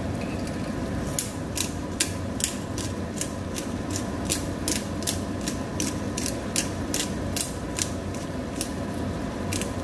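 Hand pepper grinder being twisted, its ratcheting mechanism clicking about three times a second as peppercorns are ground, over a steady low hum.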